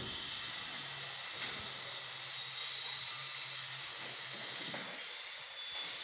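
Steady hiss of background noise, with a faint low hum for a few seconds in the middle.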